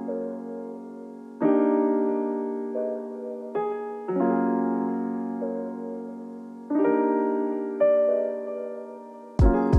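Slow, gentle piano music: sustained chords struck about every two to three seconds and left to ring and fade, with a few single melody notes between them. Near the end a few sharp clicks come in.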